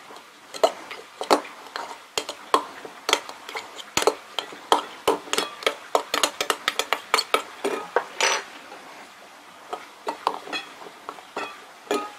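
A kitchen utensil clicking, tapping and scraping against a glass jar and filling funnel as grated quince is spooned in: a quick, irregular run of clinks, a few a second, with one longer scrape a little past the middle and fewer taps near the end.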